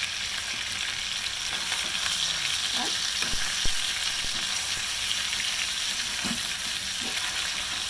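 Chicken pieces sizzling steadily as they brown in hot oil in a stainless steel skillet, being turned with a long metal fork. One sharp tap of the fork on the pan about midway.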